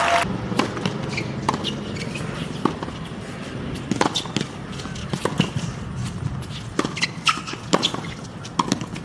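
Tennis rally on a hard court: sharp racket strikes on the ball and ball bounces, a few seconds apart, with short squeaks of shoes on the court surface.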